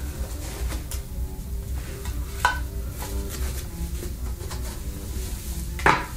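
Rustling and scraping of a watch box and its packaging being handled, with two sharp clicks, one about two and a half seconds in and a louder one near the end, over light background music.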